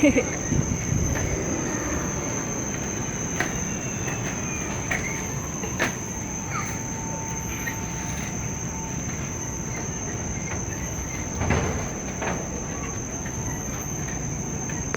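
Steady high-pitched drone of tropical forest insects, with a few sharp knocks from footsteps on the canopy walkway's boards, the loudest about two-thirds of the way in.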